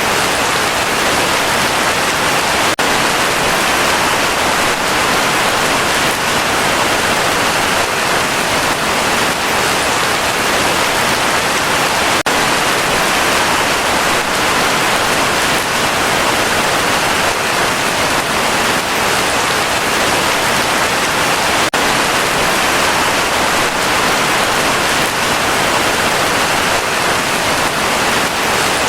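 Heavy rain falling steadily, a dense, even hiss of countless drops with no let-up.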